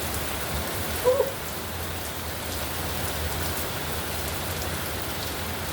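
Steady heavy rain from a thunderstorm, falling hard on surfaces, with one short, louder sound about a second in.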